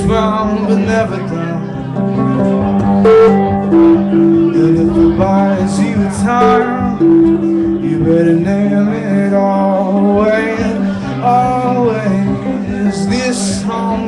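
A man singing live to his own acoustic guitar, the guitar chords ringing steadily under the voice, with long held sung notes about four and seven seconds in.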